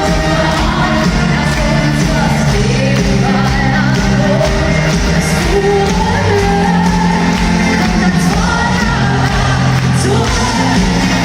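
Live pop song played by a full band in a large arena, a woman singing over it in long held and gliding notes.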